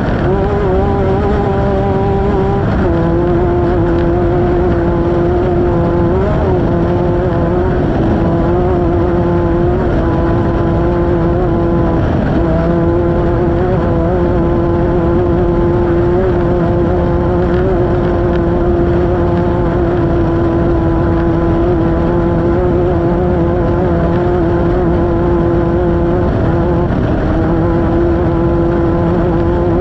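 Off-road race vehicle's engine held at high, steady revs over loud tyre and wind noise; the engine note drops slightly about three seconds in, then holds.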